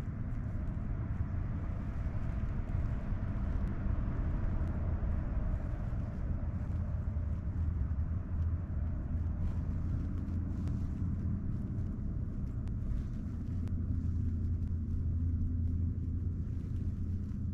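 Steady low outdoor rumble with a faint hum, unchanging throughout, with no distinct sound standing out.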